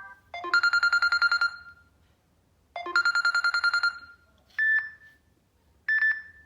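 A Samsung Galaxy A6 built-in ringtone imitating a ringing telephone. It plays two rapid trills about a second each, then two short single beeps.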